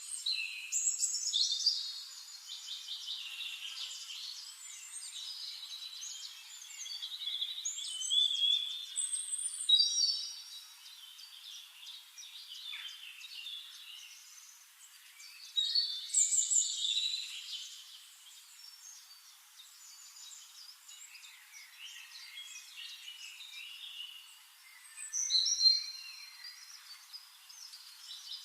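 Several songbirds singing at once in overlapping chirps, trills and short whistled phrases, with louder bursts of song near the start, about a third of the way through, midway and near the end.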